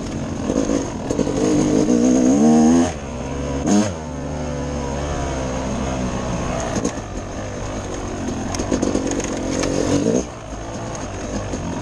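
Dirt bike engine running under changing throttle while riding, its pitch rising and falling. It is chopped off sharply about three seconds in, blipped briefly a second later, and eased off again near the end.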